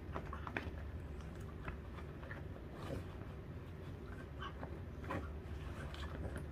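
Dachshund gnawing a lamb backbone treat: scattered small crunches and clicks of teeth on bone at irregular intervals, over a low steady hum.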